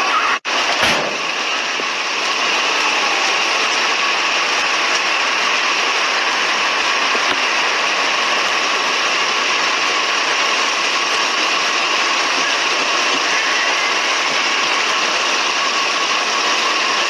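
Steady running-engine noise with a faint high whine in it, unchanging throughout, broken by a brief cut about half a second in.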